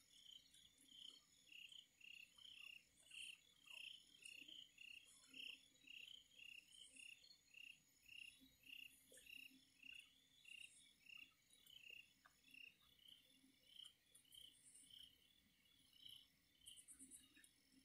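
Faint, steady chirping of night insects, about two chirps a second, with fainter high buzzes above it.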